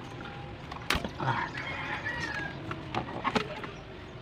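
A few sharp clicks and knocks of hand tools being handled in an engine bay during cylinder-head removal, the loudest about a second in and two more around three seconds in, with a chicken clucking in the background.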